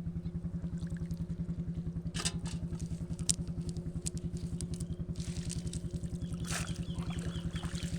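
A small engine running steadily with a fast, even thumping beat. A few short clicks and rustling noises sound over it about two and three seconds in and again around five to seven seconds.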